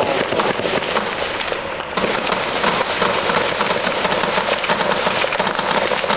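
Sustained small-arms fire: a dense crackle of many overlapping gunshots and bursts, easing slightly for a moment just before two seconds in, then picking back up.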